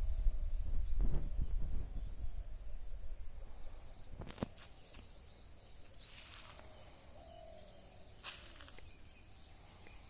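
Countryside ambience: insects keep up a steady high drone, with a few short bird chirps. A low rumble on the microphone fades over the first few seconds, and there is a single sharp click about four seconds in.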